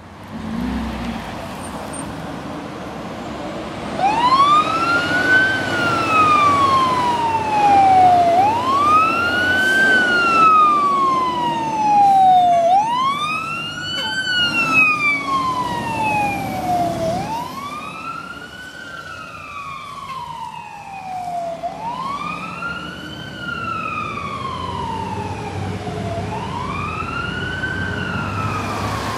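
Fire truck siren wailing in slow cycles that begin about four seconds in, each pitch quickly rising then falling slowly, about one cycle every four seconds. The truck's engine runs underneath and is heard alone before the siren starts.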